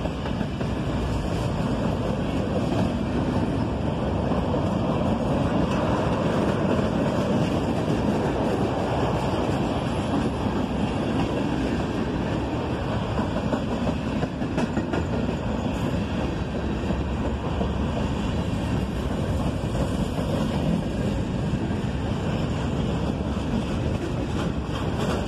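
Freight train rolling past with a steady rumble of wheels on rails.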